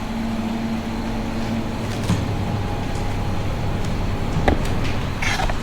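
Steady mechanical hum over a constant noise, with a couple of sharp knocks and a short squeak near the end.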